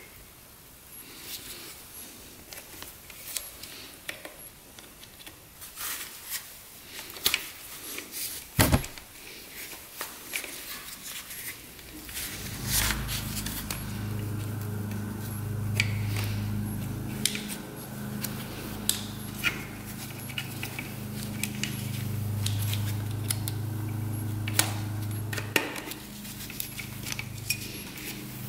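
Small metal clicks, taps and scrapes of pliers working a pin at the brake arm of a motorcycle drum-brake hub. About twelve seconds in, a low steady hum starts and runs underneath.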